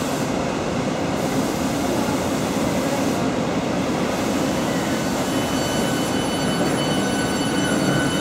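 Hitachi Class 395 Javelin electric multiple unit pulling away from a platform, with a steady rumble of wheels and running gear. About five seconds in, a steady high electric whine from the traction equipment comes in as it gathers speed.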